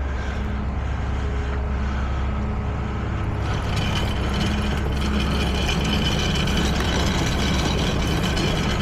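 Tow truck engine running steadily. About three and a half seconds in, a busier mechanical clatter of gears joins it.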